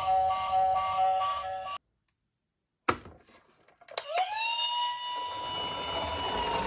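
A short repeating music jingle cuts off about two seconds in, leaving silence. Then come a few clicks, and a toy police car's siren starts: one tone rising quickly, then held steady.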